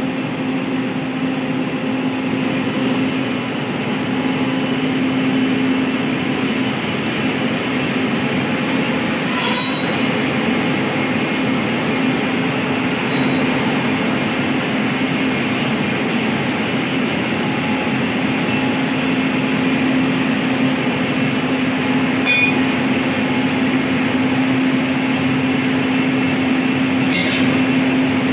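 WAG-9H three-phase electric locomotive running close by as it eases up to a coach for coupling, its machinery giving a steady loud hum. Three short metallic clinks sound over it, one about a third of the way in and two near the end.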